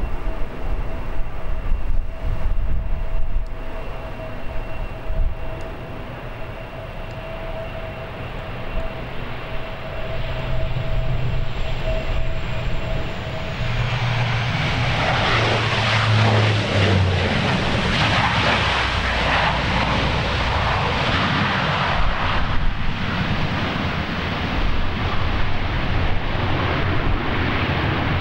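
Bombardier DHC-8 Q400 twin-turboprop landing: first a steady propeller whine over gusty wind rumble on the microphone, with a high tone that sags in pitch about 12 seconds in, then a broad rushing roar of engines and propellers that swells about halfway through and stays loud.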